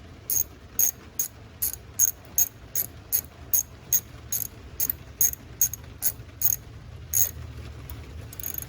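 Hand ratchet wrench clicking in steady strokes, about two and a half clicks a second, as a bolt is turned. Near the end the clicks slow to two more, spaced farther apart.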